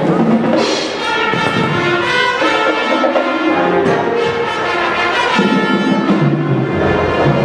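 High school marching band playing its show, with the brass section sounding loud held chords. A deep low note comes in about six seconds in.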